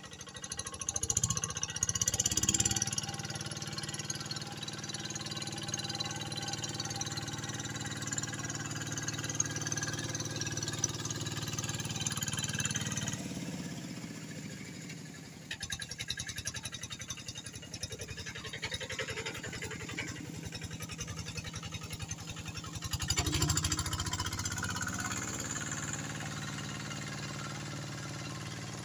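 Quick G1000 two-wheel hand tractor's diesel engine running steadily under load while it drags a leveller through a flooded rice paddy. The engine note swells and shifts in pitch twice, about a second in and again past the three-quarter mark.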